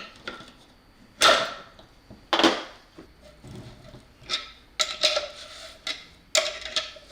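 Two sharp metal clanks with a ringing decay, then a run of lighter metallic clicks and taps, as a lock ring is tightened down on a cord grip fitting with a lock ring wrench.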